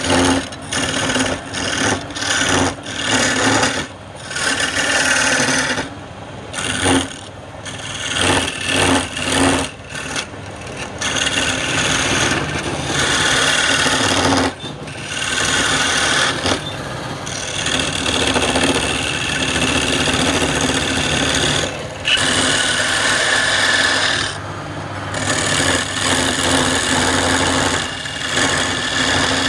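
Wood lathe turning palm wood: a hand-held flat steel chisel scraping and cutting the spinning wood in repeated passes, broken and on-off in the first half, more continuous later, over the steady hum of the lathe's motor.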